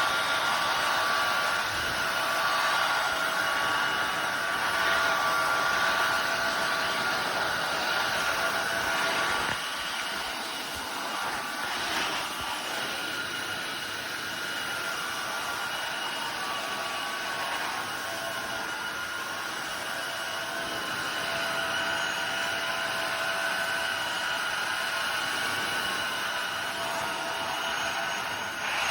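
Tineco iFloor 5 Steam wet-dry floor cleaner running in steam mode: a steady motor whine over suction noise. It drops a little in level about ten seconds in.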